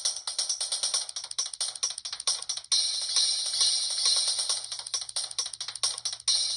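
Samsung SGH-P207 polyphonic ringtone playing through the phone's small speaker, thin and high with almost no bass. It starts as a rapid, jingly tambourine-like pattern. About two and a half seconds in, it breaks off briefly and a fuller, more sustained tune begins.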